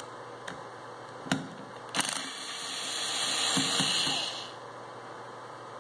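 Cordless electric screwdriver working a bolt of a starter motor: two sharp clicks about a second apart, then the tool runs for about two and a half seconds, getting louder before it stops.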